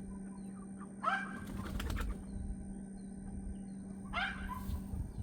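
Headless Cornish Cross meat chicken flapping its wings against the killing cone in two bouts, about a second in and again near the end. These are death throes from nerves still firing after decapitation.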